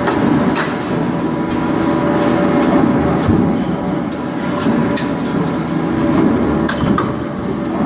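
Steady factory machinery din from a manual press machine, with several sharp metallic clicks scattered irregularly through it.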